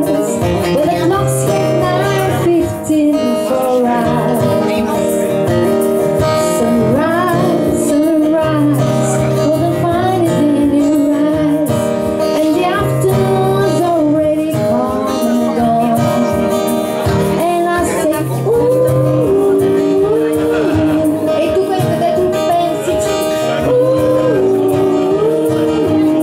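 Live acoustic folk-blues band: harmonica and violin play the melody over strummed acoustic guitar.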